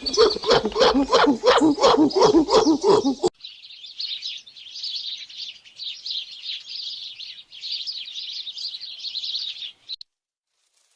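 A rapid series of pitched animal calls, about three or four a second, that cuts off abruptly a little over three seconds in. Then high, dense bird chirping and twittering runs until it stops about ten seconds in.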